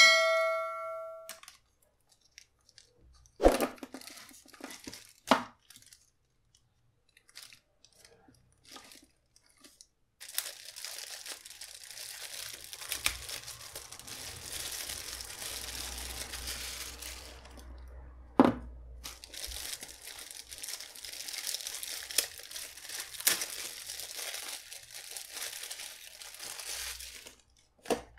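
Thin clear plastic bag crinkling and tearing as a small speaker is unwrapped from it, in two long stretches with a sharp click between them. A short bright chime sounds right at the start, and a couple of knocks follow a few seconds in.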